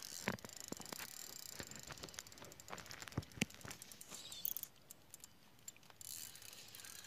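Faint, irregular clicking of a fishing reel, with a few louder ticks, as a hooked carp is played. The clicking thins out about five seconds in.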